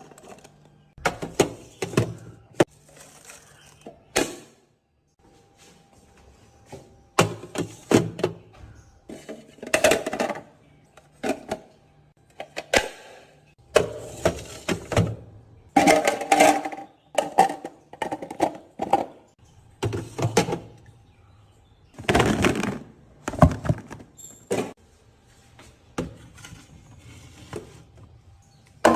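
Food containers and produce being handled and set into a refrigerator: irregular knocks and clunks, with short rustling scrapes between them.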